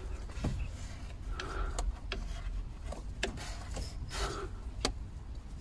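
Hand-tool handling in a car's engine bay: scattered sharp clicks and knocks from a wrench and gloved hands on the clutch slave cylinder's bleed screw and hose, with short bursts of rubbing and rustling.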